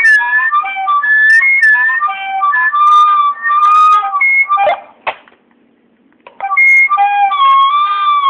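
Walkie-talkies sounding whistle-like electronic tones that step from pitch to pitch as a makeshift tune. Partway through, the tone breaks off with two sharp clicks and a short near-silence, then a wavering tone starts again.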